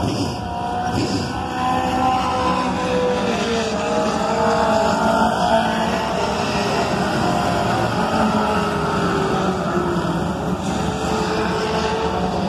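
Several Pure Stock dirt-track race cars' engines running hard on practice laps. Their pitch rises and falls as they accelerate, back off and pass, with the sounds of more than one car overlapping.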